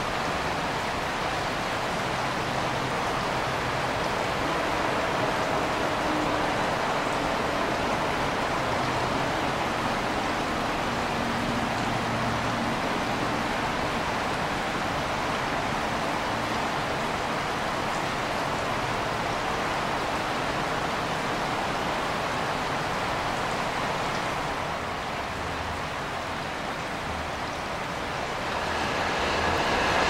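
Steady rushing noise of flowing creek water, with a faint low hum underneath. About five seconds before the end it drops a little, then swells again with a few thin high tones.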